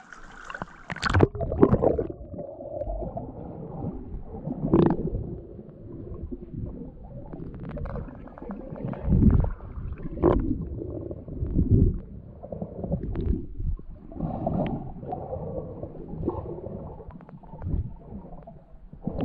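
Muffled underwater sound from a submerged camera: water gurgling and sloshing in irregular low surges, with a few sharp clicks.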